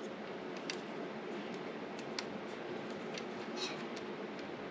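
Faint scattered clicks and ticks of small metal door-lever hardware being handled while a mounting screw is threaded in by hand, over a low steady hiss.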